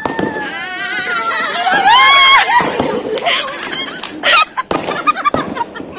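A long, high-pitched squeal from a person's voice that dips and then rises in pitch and is loudest about two seconds in, followed by laughter and excited voices, with several sharp cracks.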